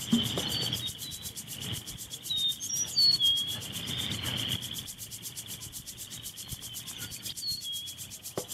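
Rustling and rubbing as gear is pulled out of an SUV's rear cargo area, including a longboard skateboard, strongest at the start and again around the middle. Underneath, a steady insect drone and scattered short bird chirps.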